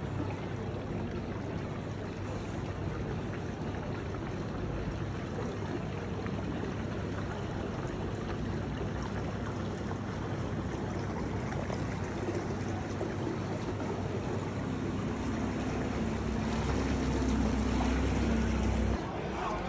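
Small motorboat's engine running at low speed over a steady hiss of wind and water, growing louder and deeper as the boat passes close near the end, then cutting off suddenly.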